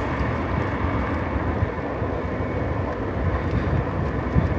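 Steady rush of wind buffeting the microphone, mixed with road noise, while riding an electric bike; an even, unbroken noise with no distinct events.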